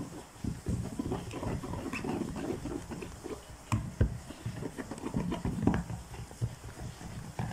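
Wire whisk beating a thin wheat-flour cake batter in a bowl: quick, irregular wet squelching and slapping, with a couple of sharper clicks about four seconds in.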